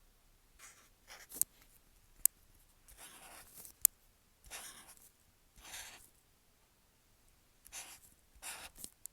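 Posca paint marker tip scratching across paper in short strokes of about half a second each, with pauses between them. Three sharp taps of the tip on the paper stand out as the loudest sounds.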